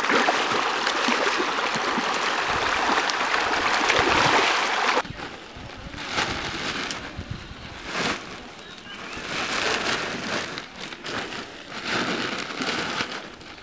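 Dense, continuous splashing of a crowded shoal of pangas catfish thrashing at the water's surface in a feeding frenzy, cutting off suddenly about five seconds in. After that, quieter irregular rustles and knocks as woven plastic feed sacks are handled and set down in a wooden boat.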